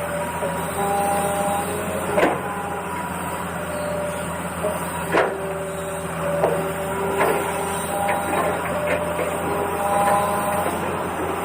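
Toy remote-control excavator's small electric gear motors whining as they start and stop, stepping between pitches, over a steady low hum. A few sharp knocks come about two, five and seven seconds in.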